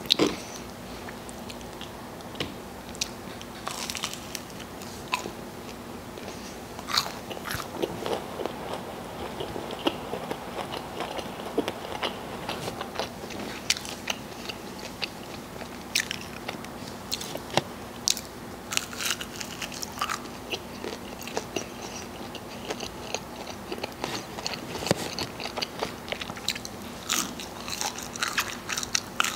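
Close-miked eating: crispy breaded chicken nuggets bitten and chewed, with irregular crunches and wet mouth clicks.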